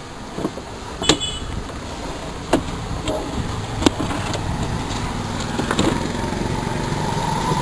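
Plastic casing of a digital weighing scale knocking and clicking as it is handled and turned over on the bench, about half a dozen separate knocks. A steady low motor-like drone runs underneath.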